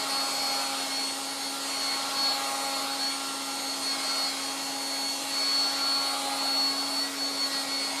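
A 1960s Dateline DLMD hairdryer running at its only speed and heat setting. Its blower fan gives a steady hum with a thin high whistle over a rush of air.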